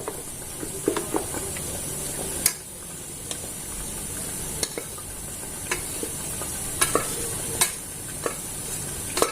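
A serving spoon scraping and clinking against a pressure cooker as cooked tomato rice is scooped out into another dish. There are several separate sharp clinks over a steady hiss.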